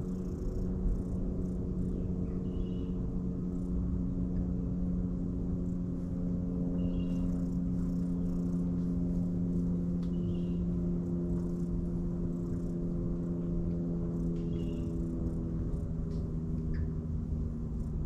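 A motor's steady low hum runs on beneath low rumble, while a bird gives a short high call four times, about every four seconds.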